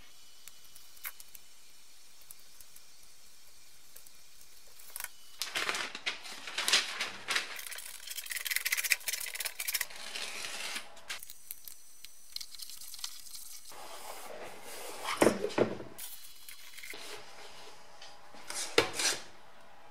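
Self-adhesive foam sheet being handled and pressed onto a flap of the BMW E30 heater unit's hard plastic housing: rustling, peeling and rubbing noises with a few sharp knocks of the plastic, starting about five seconds in.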